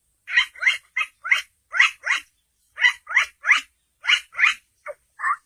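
A man imitating with his voice a bird's alarm call, the call it gives on seeing a snake: about a dozen short, upward-sliding chirps in quick groups of two to four.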